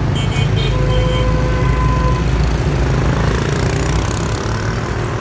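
Motorbike and car traffic passing close by on a city street, engines running with a steady low rumble that is strongest in the first few seconds.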